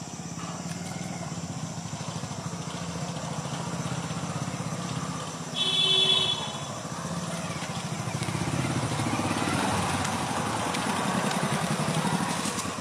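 A motor engine running steadily with a low, even hum, and a short high-pitched tone about six seconds in.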